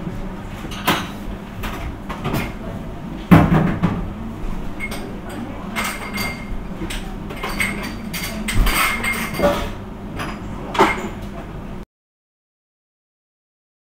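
Scattered knocks and clattering on a hard floor, with one loud thump about three seconds in, then complete silence for the last two seconds.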